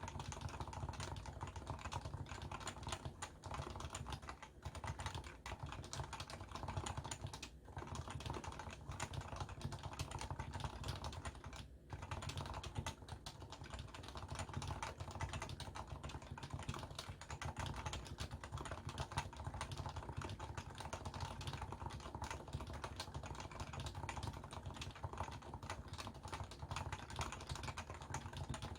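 Continuous typing on a Leopold FC660C keyboard with stock, non-silenced 45 g Topre electro-capacitive switches, picked up by a Samsung Galaxy S10+ phone microphone. The key presses come in a dense, steady stream, with a couple of brief pauses in the first half.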